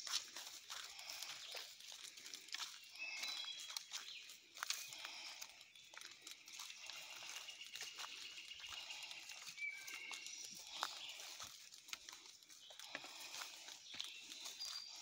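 Footsteps rustling through leafy undergrowth on a woodland trail, with irregular crunches and snaps. Behind them runs a steady high insect hum, with scattered short high-pitched calls and one long even call in the middle.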